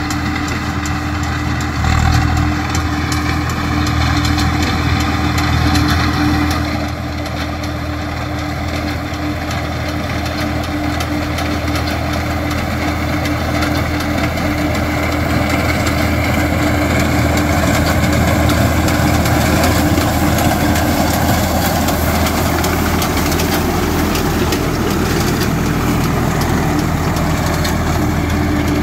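Tractor diesel engine running steadily, driving a front-mounted reaper binder as it cuts wheat.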